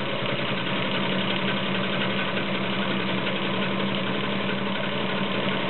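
Vintage 1950s all-metal Atlas sewing machine running at a steady speed, its 1.2-amp motor humming while the needle stitches a decorative cam pattern through fabric, with fast, even ticking from the mechanism.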